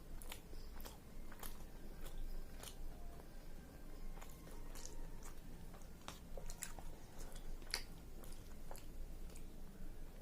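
Close-up chewing of a mouthful of chicken biryani: irregular wet mouth clicks and smacks, several a second.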